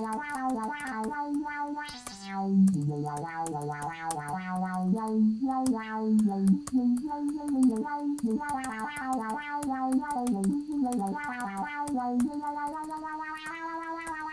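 Virtual Korg MS-20 software synthesizer playing a melody on a patch configured to imitate the huehua synth sound, modelled on a Yamaha synthesizer; a lead line of notes that step up and down continuously.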